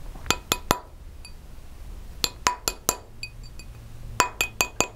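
Plastic mallet lightly tapping a sterling silver ring on a steel ring mandrel, shaping the soldered ring into a true round. There are three quick runs of three or four taps each, and every tap leaves a short, bright metallic ring.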